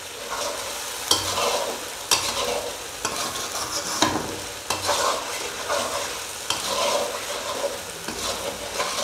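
Metal spatula stirring and scraping chicken in green masala around a steel karahi while it fries, the sauce sizzling throughout, with a sharp scrape or clack of the spatula against the pan about once a second.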